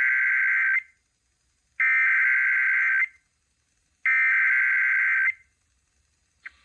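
Emergency Alert System SAME header: three loud bursts of digital data tones, each a little over a second long, separated by about a second of silence. This is the coded header that opens an emergency alert broadcast.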